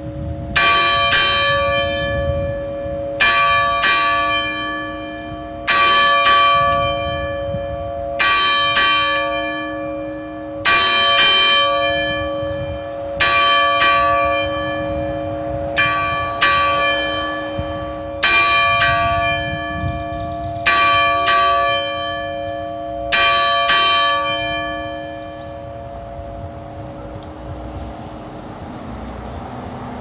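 A single swinging church bell rung in memorial, its clapper striking twice per swing: pairs of strokes about half a second apart, repeating every two and a half seconds, with the bell's hum ringing on between them. The last pair comes about 24 seconds in and the ringing then dies away.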